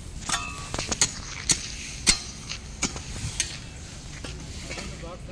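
Irregular sharp knocks of a short-handled hoe striking and scraping dry, hard-packed ground while weeds are cleared, over a steady low rumble.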